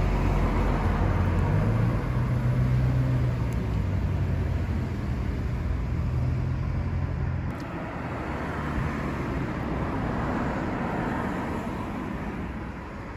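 Outdoor road traffic with a vehicle engine running close by: a steady low hum under a noisy rush. The sound changes abruptly about seven seconds in, becoming an even, slightly quieter traffic rush.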